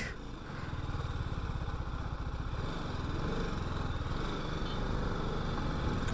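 Single-cylinder engine of an RR 310 sport motorcycle running while riding, its sound building gradually as it picks up speed.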